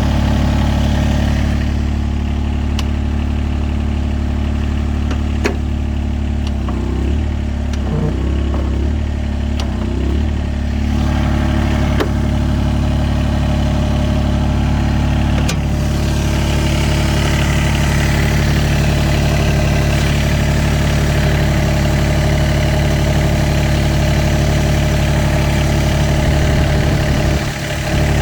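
Yanmar excavator's diesel engine idling steadily, with a few sharp clicks along the way.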